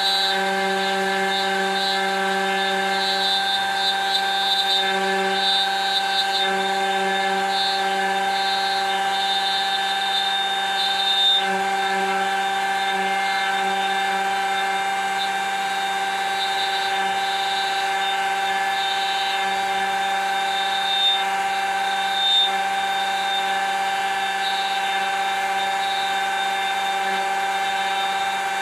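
Electric router on a hand-guided copy carver running at a steady high-pitched whine while its bit cuts into the workpiece. The cutting sound wavers now and then as the bit is moved along, with a few brief louder moments.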